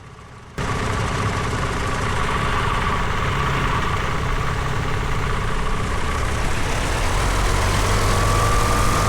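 Tecnam light aircraft's piston engine and propeller running at low power, a steady drone that starts abruptly about half a second in. Its whine rises slightly and it grows a little louder near the end.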